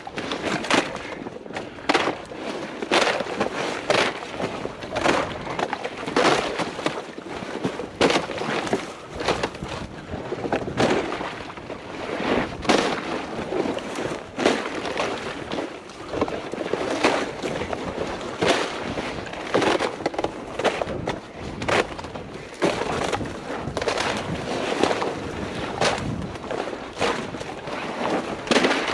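A hunter's footsteps pushing through marsh cover: a crunching, swishing burst at each stride, about two a second, as vegetation is trampled and broken.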